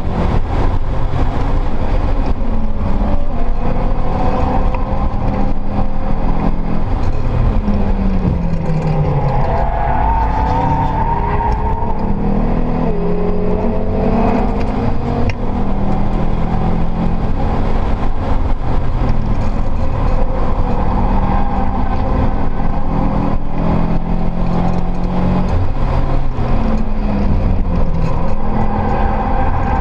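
Turbocharged Subaru STi's built EJ flat-four engine heard from inside the cabin under hard track driving. The engine note rises and falls with acceleration, braking and gear changes, over constant road and wind noise.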